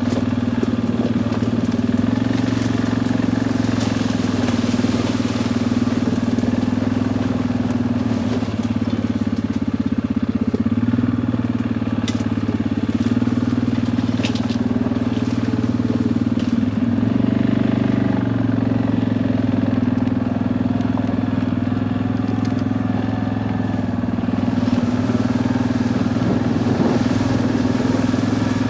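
Engine of an off-road vehicle running steadily at a low, even speed as it moves through scrub and long grass, with a few short scratchy sounds about halfway through.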